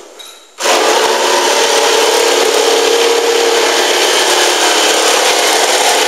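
Corded hand jigsaw starting up about half a second in and cutting steadily through 4 mm plywood.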